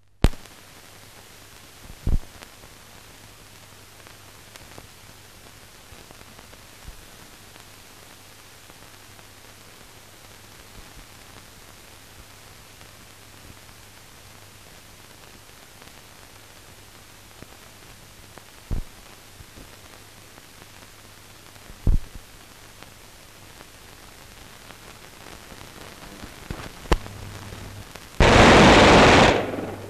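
Steady hiss and hum of an old film soundtrack, with a few scattered clicks and pops. Near the end comes a loud burst of noise lasting about a second and a half.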